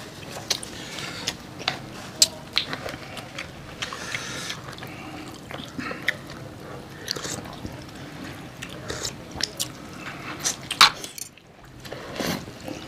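Close-up eating sounds: soupy instant curry noodles being slurped and fried chicken being bitten and chewed, with frequent sharp smacks and clicks.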